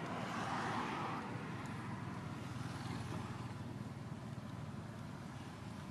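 Road traffic: a steady low rumble, with one vehicle swelling past and fading within the first second and a half.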